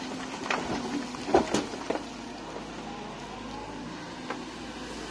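Kobelco EC220E hydraulic excavator running steadily under a diesel engine, with a cluster of sharp knocks in the first two seconds and one more near the end.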